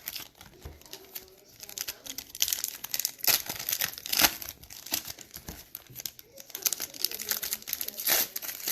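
Trading-card pack wrappers crinkling and tearing in irregular bursts as packs are ripped open and cards handled.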